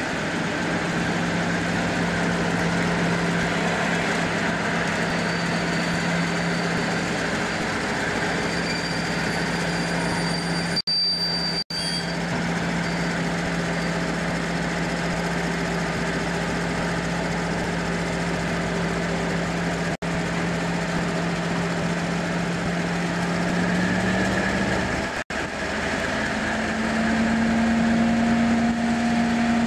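Class 56 diesel locomotive's Ruston-Paxman V16 engine running at a steady low note, which steps up in pitch near the end as the engine is opened up.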